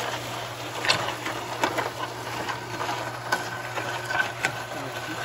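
MUD Mixer electric auger concrete mixer running with a steady low hum. Irregular sharp ticks and rattles come through as a bag of dry concrete mix is poured into its hopper.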